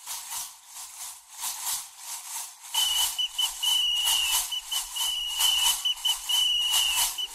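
A shrill whistle sounding in long held blasts with short breaks, starting about three seconds in, over an even, repeating high rattle with no bass.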